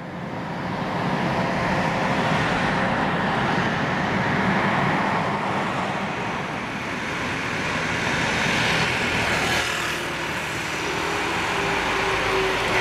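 Aircraft engine noise at an airfield: a steady, loud rumble that fades in over the first second or so, with a steady hum joining near the end.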